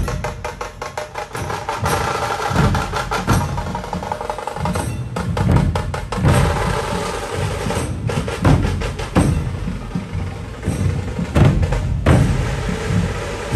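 A dhol drum troupe playing in the street: deep booming dhol beats under fast, sharp, rattling strikes, with the crowd around them.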